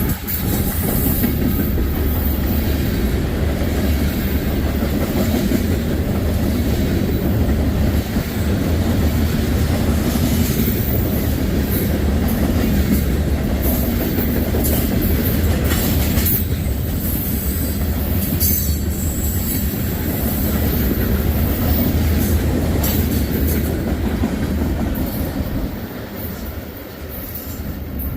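Long CSX freight train rolling past close by: a steady heavy rumble with wheels clattering over rail joints and some wheel squeal, easing somewhat near the end.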